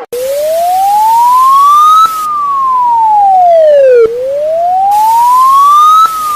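Warning siren of an emergency alert wailing: a single tone climbs for about two seconds and falls back for two, over and over, with a loud hiss that cuts in and out.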